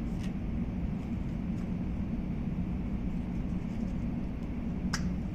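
Steady low background rumble, with two short clicks, one just after the start and one near the end, from handling the adapter and its packaging.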